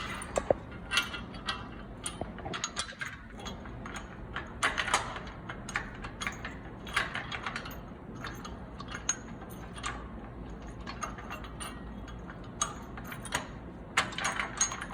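Ratchet spanner clicking in irregular short runs as bolts are tightened on a steel gym-equipment frame.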